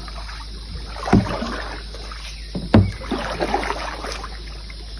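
Canoe paddling: a paddle dipping and pulling through the water with splashing and dripping, and two sharp knocks about a second and a half apart.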